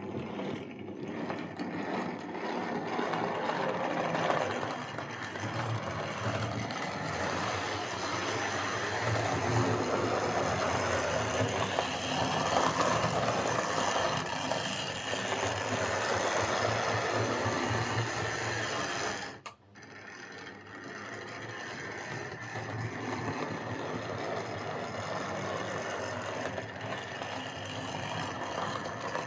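Vintage Hornby M7 OO gauge model tank locomotive running on track under power, its XL4 motor and mechanism making a rough and lumpy running sound. It cuts out briefly about two-thirds of the way through, then runs on. The repairer puts the roughness down to a dirty, over-oiled motor that needs a service and remagnetising.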